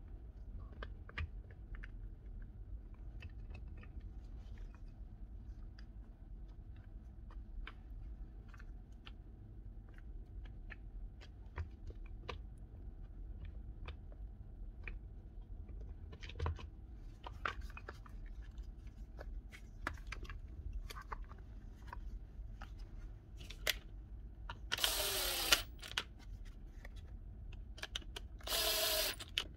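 Scattered light clicks and taps of small plastic and metal parts being handled on a workbench. Near the end come two short bursts of a cordless drill motor, the first dropping in pitch as it slows.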